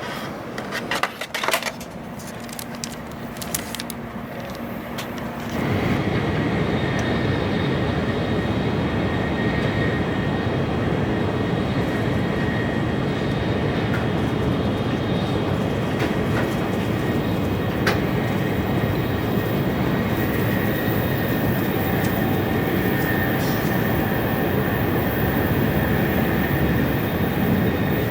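A few light clicks and knocks, then about five seconds in a sudden step up to the steady running noise of a Tokaido Shinkansen N700A bullet train at speed, an even rush with a faint high whine held over it.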